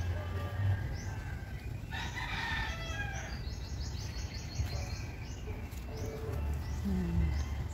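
A rooster crows once, about two seconds in, over small birds chirping again and again, with a quick run of chirps right after the crow.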